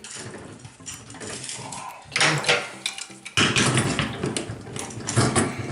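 Metal parts clinking, rattling and scraping as the old shower valve's trim and retainer ring are handled, growing busier and louder about three seconds in.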